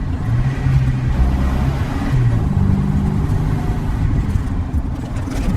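Volvo Amazon's four-cylinder engine running while driving, its note rising and falling as the revs change.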